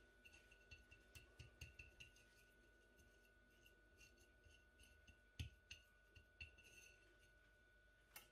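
Very faint scraping and light taps of a metal spatula spreading grated potato over a layer of minced meat on baking paper. The scrapes are scattered, with one slightly louder tap about five seconds in.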